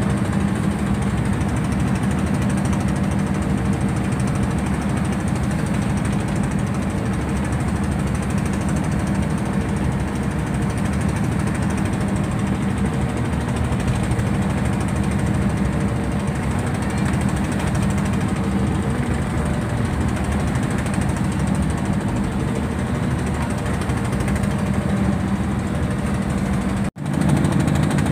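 Fishing boat's inboard diesel engine running steadily at cruising speed, a loud, rough clattering drone heard from on deck. It drops out for an instant near the end.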